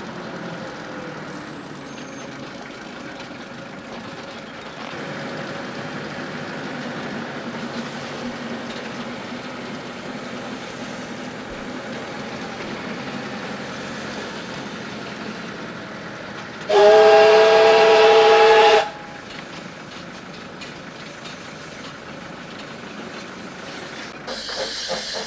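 Narrow-gauge steam locomotive and its train running alongside, heard from inside a moving car. About two-thirds of the way through, the locomotive's steam whistle blows one loud blast of about two seconds. Near the end the locomotive comes close and its exhaust is heard as a fast, even chuffing.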